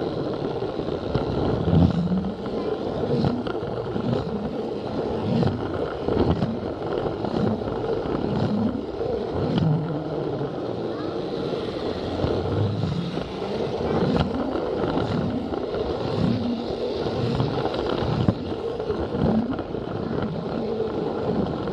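Battery-powered Plarail toy train running steadily along plastic track, its small motor and gears whirring with a steady whine, with light clicks from the wheels on the track.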